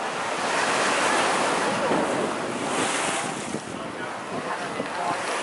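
Ocean surf washing onto a rocky shoreline: a steady rushing wash that swells and eases, with wind on the microphone.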